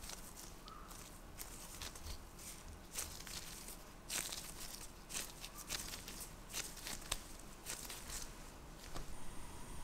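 Gloved hands pressing and flattening a ball of soft mashed sweet-potato dough: faint, irregular soft squishing and rustling of glove against dough, with scattered small crackles.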